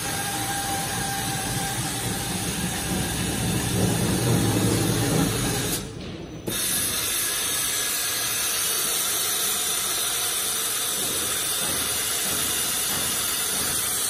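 ABS core slitting machine running, its motor-driven circular blade cutting into a rotating ABS plastic core: a steady hissing, grinding noise. It grows louder about four seconds in and briefly drops away about six seconds in.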